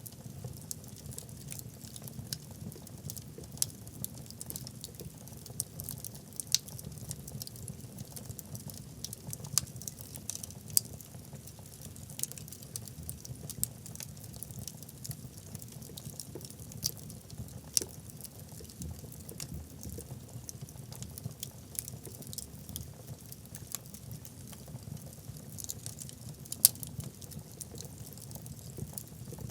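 Wood fire burning in a fireplace: irregular sharp crackles and pops from the burning logs over a low, steady rumble of flame, with one louder pop near the end.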